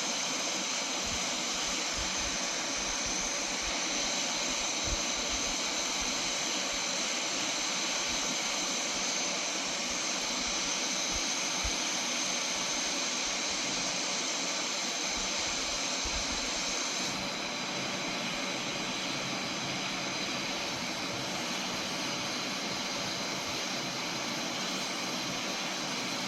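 Hot air rework station blowing a steady stream of hot air with a high-pitched whine, heating the circuit board until the USB-C port's solder melts. The hiss changes slightly a little over halfway through.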